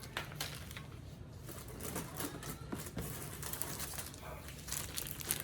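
Plastic model-kit runners being handled and set down one by one, a series of light, irregular clicks and taps.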